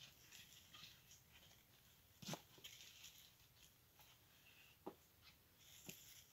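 Near silence, with faint rustling and a few short, soft clicks, the clearest about two seconds in and again near five and six seconds.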